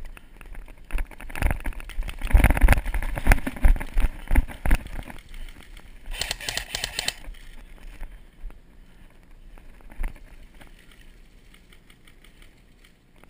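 Hurried footsteps on dirt and gravel with gear rattling and knocking against the camera wearer, loudest in the first few seconds. About six seconds in comes a burst of rapid clicks lasting about a second, an airsoft electric gun firing on full auto.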